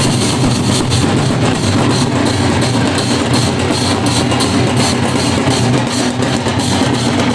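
Loud band of large barrel drums (dhol) beaten with sticks, joined by a smaller, higher drum, playing a steady, driving rhythm together.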